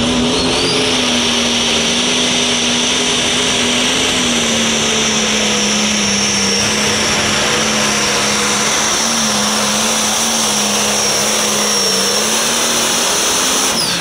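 Turbocharged diesel pro stock pulling tractor running flat out under load, a steady loud engine note with a high turbo whine over it; the pitch sags a little as it pulls. Just before the end the throttle comes off and the engine drops away, falling in pitch.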